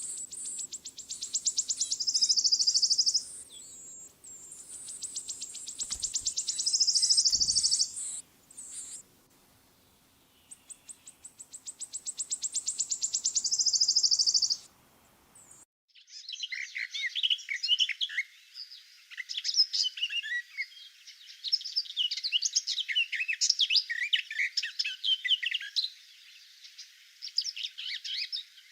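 Songbirds singing in a May woodland. A single bird sings a high, rapid trill three times, each trill growing louder over about three seconds. About halfway through, the sound cuts to a dense chorus of many birds chirping.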